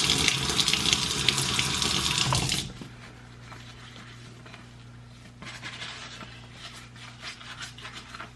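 Kitchen faucet running into the sink, shut off abruptly about two and a half seconds in. Later come soft, irregular squishing and rubbing sounds of a wet, soapy sponge being worked to build suds.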